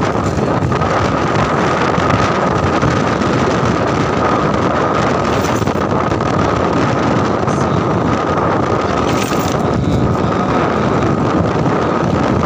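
Wind buffeting the microphone on a moving motorcycle, over the engine running steadily, with a steady high whine.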